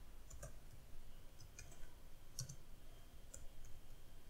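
Faint, irregularly spaced keystrokes on a computer keyboard, typing in a string of digits.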